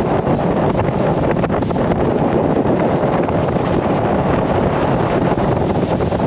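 Wind buffeting the microphone on a motorboat under way, a steady, loud rushing noise with the boat's engine and water noise blended underneath.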